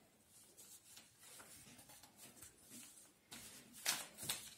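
A sheet of paper being folded and creased by hand: faint rustling and rubbing of paper, with a few louder rustles about three and a half seconds in.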